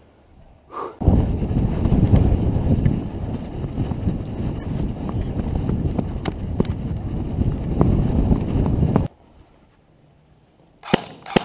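Rough, loud rumble of a body-worn camera microphone being jolted while the player runs, with irregular thumps of footsteps and knocks; it starts abruptly about a second in and cuts off about nine seconds in. A couple of sharp clicks follow near the end.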